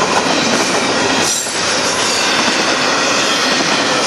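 Union Pacific double-stack container train rolling past at close range: a loud, steady rumble and clatter of the well cars' wheels on the rails, dipping briefly about a second and a half in.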